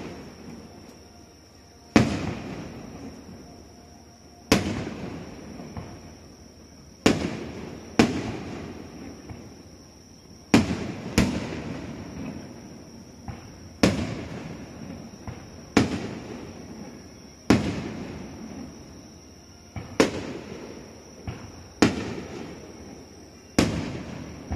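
Aerial firework shells bursting: about a dozen sharp bangs, one every couple of seconds, each followed by a long rolling echo that dies away.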